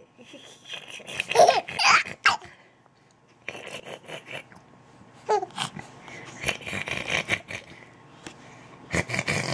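A baby laughing and babbling in short bursts, with pauses between them.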